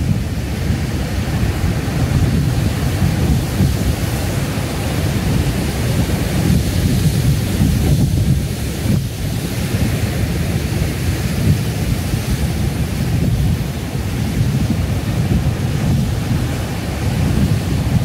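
Heavy ocean surf breaking and churning over a rocky shore: a loud, steady, deep roar of whitewater with no single crash standing out.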